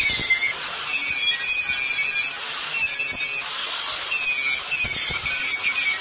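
Angle grinder with a wire brush wheel scouring the rusty, painted steel frame of a concrete mixer. It gives a loud, high whine with a gritty scraping under it, and the pitch shifts several times as the brush is pressed on and moved about.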